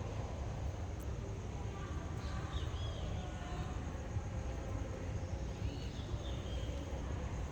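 Steady low outdoor background rumble with a few faint, short high chirps, about two and a half seconds in and again about six seconds in.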